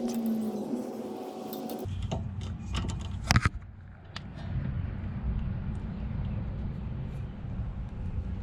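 Metal hand tools clinking, with one sharp clank about three seconds in, over a low steady rumble.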